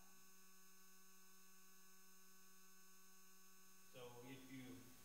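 Near silence with a steady electrical mains hum: a low buzz of a few fixed tones. A faint voice comes in about four seconds in.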